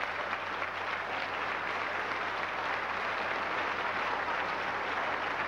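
Large banquet audience applauding steadily.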